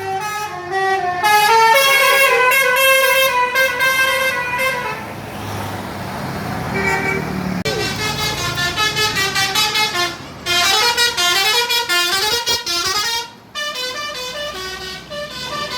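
Bus telolet horn: a combination horn of several trumpets sounding together, playing a tune of stepping notes in repeated phrases, loud, with a short gap about 13 seconds in.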